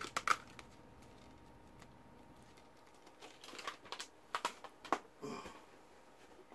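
Plastic disc cases clicking and knocking as they are handled: a couple of sharp clicks at the start, then a cluster of clicks and a short rustle about three to five seconds in.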